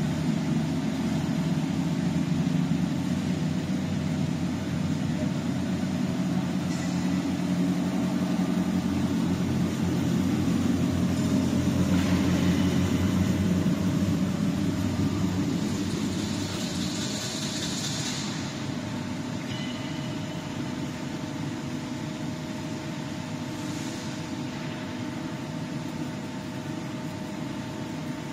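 Continuous frying machine running on test: a steady machine hum from its motors, with a low drone and a few steady tones. A brief hiss comes about two-thirds of the way through, and the low drone eases after that.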